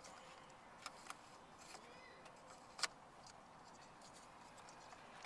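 A few light clicks and taps of small parts being handled, two about a second in and a sharper one just before three seconds, over near silence.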